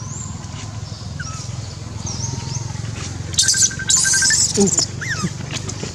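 Outdoor ambience with scattered bird chirps over a steady low hum. About three and a half seconds in, a loud shrill high-pitched sound lasts about a second and a half, followed by a few short gliding calls.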